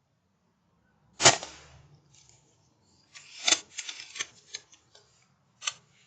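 Air rifle shot: one sharp crack about a second in that dies away quickly. A run of irregular clicks and rattles follows about two seconds later, with a single click near the end.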